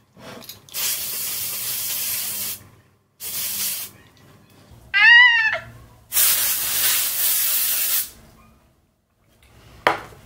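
Oribe Dry Texturizing Spray aerosol can hissing onto hair in three bursts: a long one, a short one, then another long one. Between the second and third bursts comes a short vocal sound that rises and falls in pitch, the loudest thing here, and a sharp click comes near the end.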